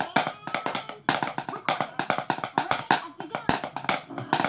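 Wooden drumsticks beating a fast, uneven pattern of sharp taps and clicks on a hard flat surface, about six or seven strokes a second with louder accented hits.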